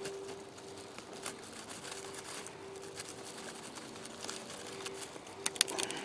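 Fixed-blade knife carving a notch into a dead hardwood stick: quiet scraping and cutting of the blade in the wood, with a few sharper clicks near the end.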